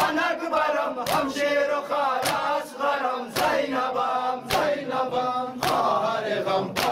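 A group of men chanting a lamentation together while beating their chests in unison (matam). Each chest strike is a sharp slap, about one a second, falling in time with the chant.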